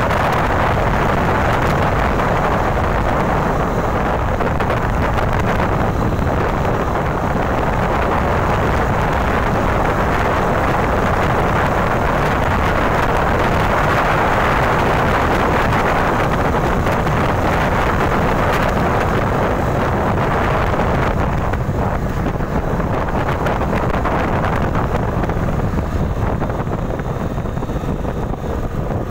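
Royal Enfield motorcycle at highway speed, about 100 km/h: steady wind rush buffeting the handlebar-mounted phone's microphone over the engine and tyre noise, easing slightly in the last several seconds.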